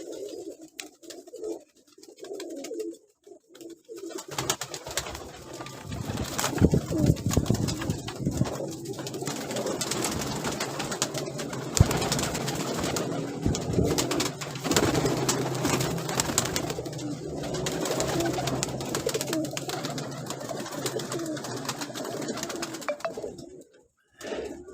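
Domestic pigeons cooing, a low repeated coo. About four seconds in, a steady low hum and scattered sharp clicks join it.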